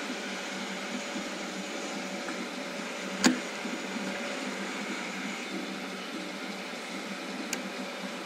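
Steady hum of machine-shop machinery. A sharp click about three seconds in is the loudest sound, and a fainter click comes near the end.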